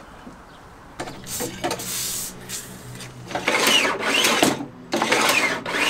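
Aerosol can of WD-40 sprayed in two hissing bursts of about a second each, on the saw's blade mechanism, after a couple of seconds of handling and rattling of the saw.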